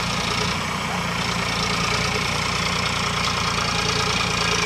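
Sonalika tractor's diesel engine running steadily while the tractor drags a rear blade through loose soil.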